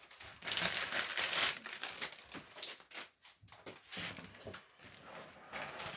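Plastic bags and a large covering sheet crinkling and rustling as they are handled and moved. The rustling is loudest in the first second and a half, stops briefly around the middle, then returns more quietly.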